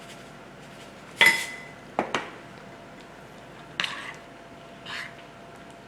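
Utensil clinking and knocking against a mixing bowl a handful of times while a thick topping is stirred, one clink about a second in ringing briefly.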